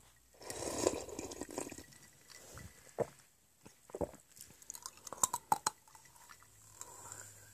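Close-up drinking from a cola bottle: a longer wet, noisy stretch about half a second in, then several short separate sips and mouth clicks.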